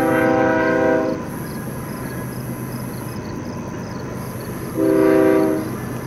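BNSF diesel locomotive's air horn blowing for a grade crossing: a long blast ends about a second in, then a short blast near five seconds, over the steady rumble of the approaching train.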